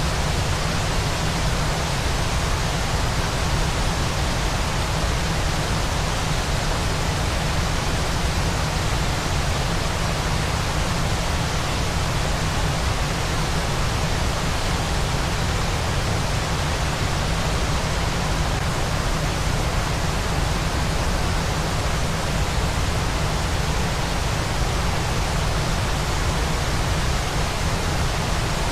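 Steady, unbroken rushing noise of a waterfall, even throughout with a heavy low rumble beneath the hiss.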